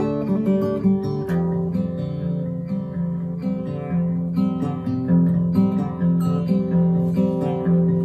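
Acoustic guitar music: strummed and picked chords over a repeating bass line.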